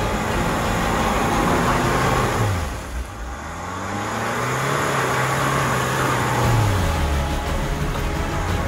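Land Rover Defender's 2.0-litre four-cylinder diesel engine pulling the SUV through deep mud ruts. The engine note falls away and dips about three seconds in, picks up again and holds, then eases off near the end.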